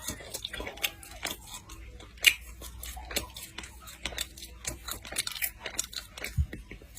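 A person chewing pork close to the microphone: irregular sharp mouth clicks, several a second, with one louder one a little over two seconds in.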